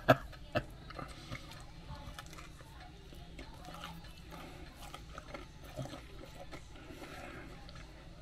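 A man chewing a mouthful of barbecue chicken sandwich: faint, irregular small clicks of chewing, with a slightly louder one about half a second in and another near six seconds.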